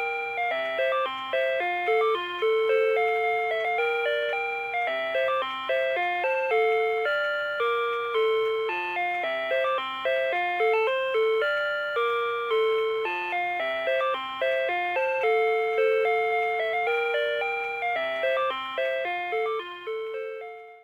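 Rhythm Watch 'Week Time' melody alarm clock playing its electronic alarm tune, a two-part melody of chime-like notes that each strike and fade. The tune cuts off suddenly at the end.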